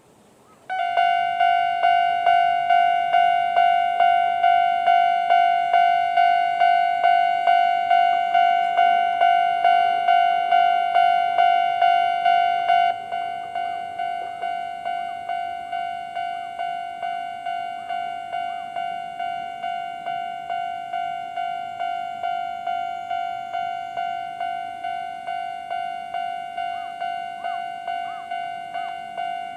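Japanese level-crossing alarm, the old-type standard electronic bell tone at a fast tempo, starting up and dinging steadily about twice a second. About 13 seconds in it drops to a noticeably lower volume and carries on ringing.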